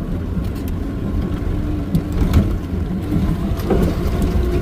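Maruti Gypsy off-roader running along a rough dirt track: a steady low engine rumble with a few scattered knocks and rattles over bumps.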